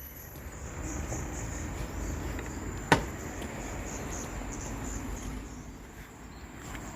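Forest insects shrilling steadily in a high, faintly pulsing chorus over a low rumble, with one sharp click about three seconds in.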